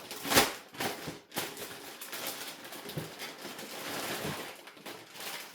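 Rustling and light knocks of kit packaging being handled as the RC car's body shell is taken out of its box, with the loudest rustle about half a second in.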